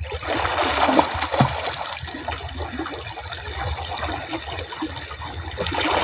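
Water splashing and churning as a man swims through a flowing irrigation canal, with the rush of the canal's current underneath. The splashing is loudest about a second in.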